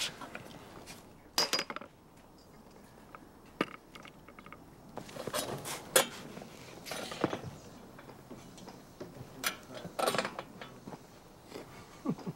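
Bicycles being handled: a scatter of separate metallic clicks, clinks and knocks with quiet stretches between, the sharpest about a second and a half in, around six seconds and around ten seconds.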